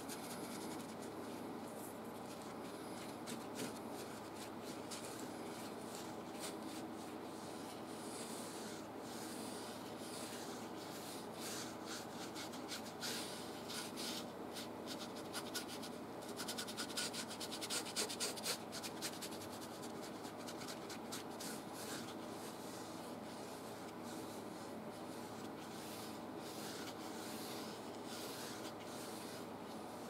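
Bristle brush scrubbing and blending oil paint on textured canvas: a soft, repeated scratching, with a louder, denser run of strokes about halfway through.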